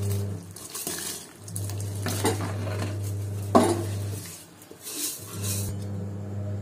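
Raw rice poured from an aluminium pan into a pot of boiling water, the grains going in with a hiss and the pan knocking against the pot's rim a few times, loudest about three and a half seconds in. A steady low hum runs underneath.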